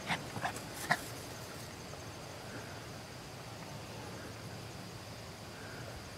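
Two or three footsteps in field grass in the first second, then they stop. A faint steady high trill of insects carries on over quiet open-field ambience.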